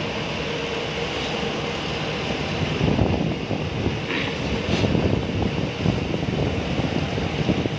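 Boat engine running steadily, with wind buffeting the microphone and water wash.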